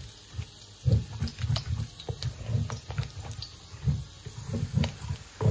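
Wooden pestle pounding and working a thick eggplant stew in a ridged earthenware asanka to mix peanut butter through it, giving a steady rhythm of low, soft thuds, two to three a second, with light scraping clicks.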